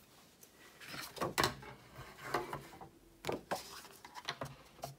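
Plastic cutting plates and a magnetic cutting mat being laid and slid into place on the platform of a die-cutting machine: a series of separate knocks and short clatters, with a sheet of card stock laid on top near the end.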